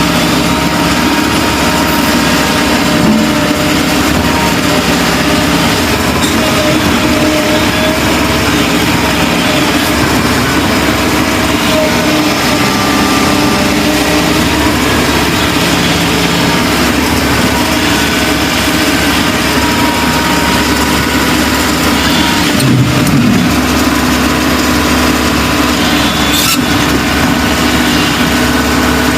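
Heavy diesel machinery running steadily: excavator and dump truck engines at work during sand loading. There are a couple of sharp knocks, one about three-quarters of the way in and one near the end.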